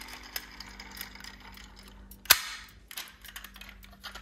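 Light clicks and plastic-on-metal handling of a 1:24 diecast Audi A4 model, with one sharp snap about two seconds in as its opening door is pushed shut.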